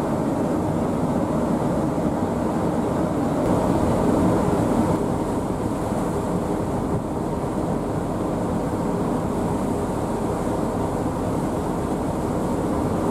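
Steady low rumble of a moving vehicle, holding even throughout.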